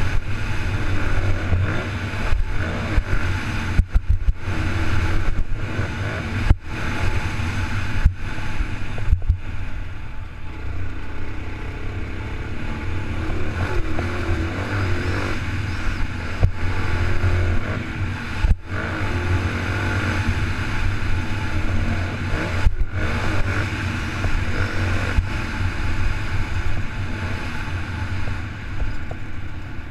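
Honda motocross bike engine running hard under throttle, with short sharp dips in the sound every second or several.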